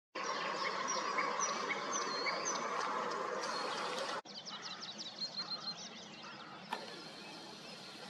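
Songbirds singing in a morning chorus, with short high whistles repeating about every half second. After a cut about four seconds in, one bird gives a fast run of repeated high notes, and a single short click is heard near the end.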